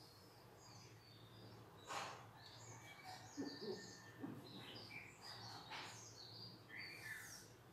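Faint chirping of small birds, repeated throughout, over a low steady hum. Two short strokes of a marker on a whiteboard sound about two and six seconds in.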